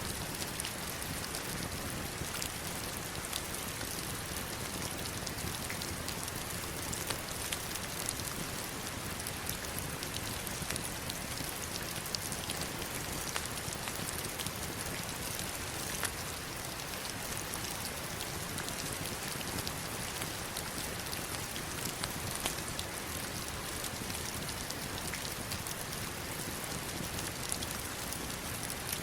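Heavy rain falling steadily: a dense, even hiss, strongest in the high range, sprinkled with many sharp ticks of single drops.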